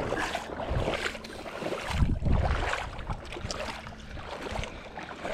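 Outdoor wind buffeting the microphone in low rumbles, the strongest about two seconds in, over a steady wash of water at the shoreline.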